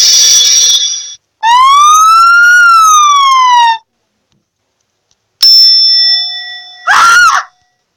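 A string of short canned sound effects from a soundboard app, played one after another with silent gaps between them: a ringing tone at the start, a single siren-like wail that rises and falls over about two seconds, then a ringing tone and a brief pitched squeal near the end.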